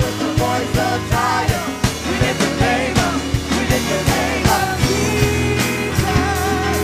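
Live worship band playing an up-tempo song: a steady driving drum beat over a sustained bass line, with voices singing above it.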